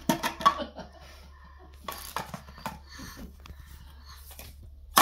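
Plastic stacking-ring toy knocking and clattering as a baby handles it and tips it over, with a cluster of knocks just after the start and a few light knocks about two seconds in.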